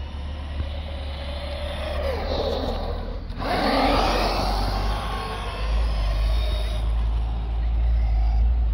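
Electric RC car driving at medium speed, its motor whine and tyre noise swelling as it passes close by about three and a half seconds in, then easing off as it moves away, over a steady low rumble.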